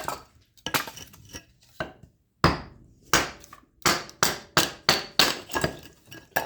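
Axe splitting dry oak kindling: a rapid series of sharp chopping strikes, roughly two a second, with the loudest blow about two and a half seconds in.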